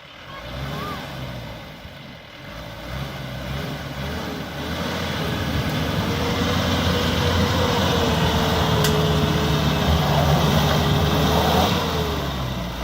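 Motor vehicle engine running under load, building in loudness over the first few seconds and then holding steady, with a single sharp click about two-thirds of the way through.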